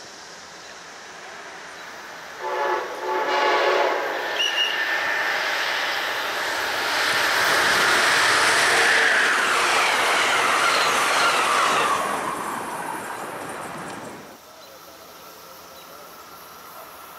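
Amtrak electric-hauled passenger train sounding its horn about two seconds in, then rushing past at speed with loud wheel and rail noise that builds, peaks and cuts off suddenly near the end.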